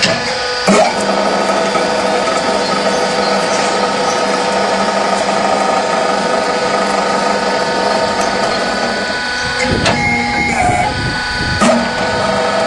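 Mobile concrete block machine running with a steady mechanical hum. Sharp metal knocks come shortly after the start and again near the end, and the hum briefly changes about ten seconds in.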